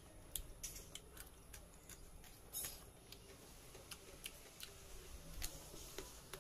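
Quiet mukbang eating sounds: irregular soft clicks of chewing and lip smacks, with fingers picking rice and meat off a banana leaf.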